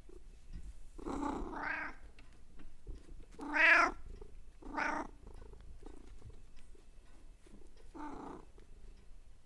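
Domestic cat purring with a steady low rumble, broken by four short calls, the loudest about three and a half seconds in.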